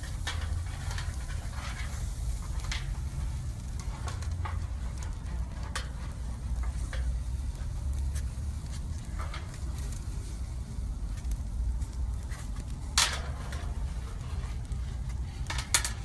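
Meat and chicken kebab skewers sizzling over a charcoal grill, with a steady low rumble underneath. Scattered sharp clicks come through, the loudest about 13 seconds in and again near the end.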